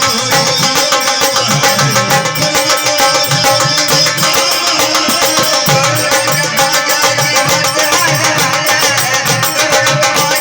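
Marathi gondhal devotional folk music: fast, steady drumming under held instrumental tones.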